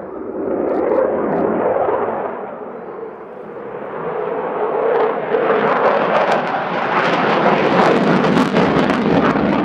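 F-16AM Fighting Falcon fighter jet's Pratt & Whitney F100 turbofan, heard from the ground as the jet manoeuvres overhead. The noise dips about three seconds in, then swells again and stays loud with a harsh crackle through the second half.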